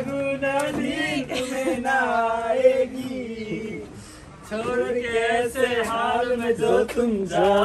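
A man singing, holding long wavering notes, with a brief drop in level about four seconds in.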